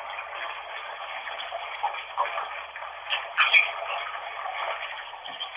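Water running into a bath from the tap: a steady rushing hiss with a few faint brief swells in it.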